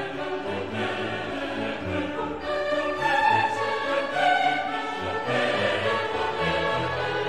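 Background music: a choir singing slow sustained chords with orchestral accompaniment.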